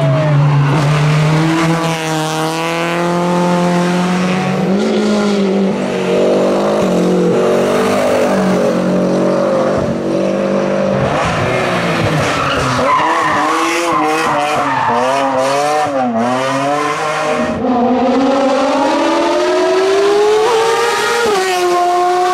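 Race car engine driven hard: the pitch climbs through each gear, drops sharply at the shifts and climbs again, with a stretch of quick rising and falling revs in the middle.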